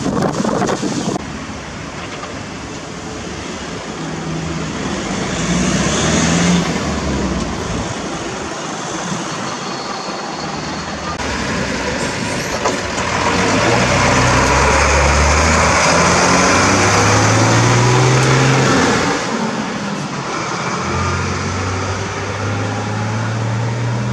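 Heavy vehicle engines running in a string of short shots. A backhoe loader's diesel runs first, then a Mercedes fire engine drives past, loudest for several seconds in the middle. Near the end there is road traffic with another engine running.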